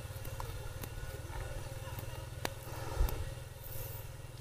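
A low, steady engine-like hum with a fast, even pulse, with a few faint clicks.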